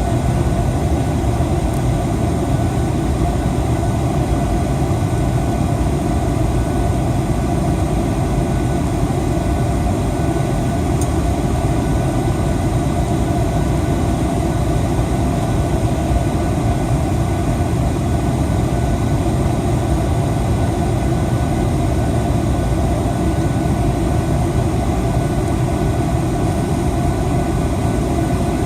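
Steady noise of a Boeing 737-800 jet: a low rumble with faint, steady high whines, unchanging in level throughout.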